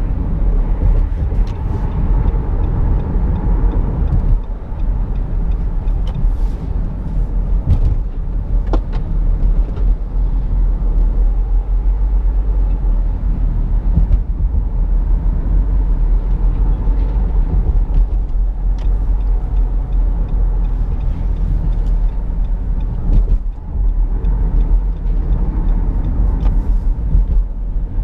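2017 Nissan Rogue being driven, heard from inside the cabin: a steady low rumble of road and tyre noise with the engine, and a few faint clicks now and then.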